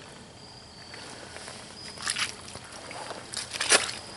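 Scraping and knocking handling noises in a small boat, in two clusters, the second and louder one near the end, over a faint steady background.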